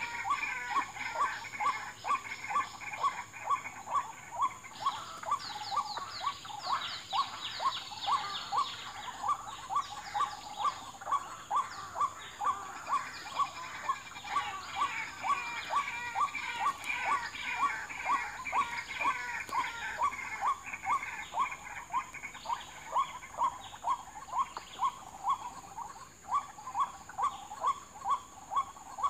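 White-breasted waterhen calls: a steady, monotonous string of short calls at about two a second, over a busier chatter of higher calls.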